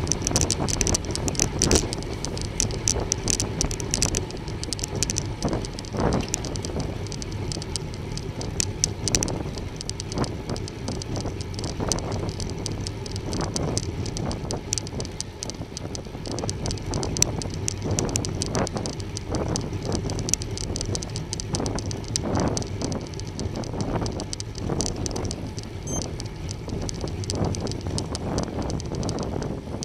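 Riding a road bike: steady wind noise on the microphone and tyre noise on the road, with frequent short clicks and rattles from the bike.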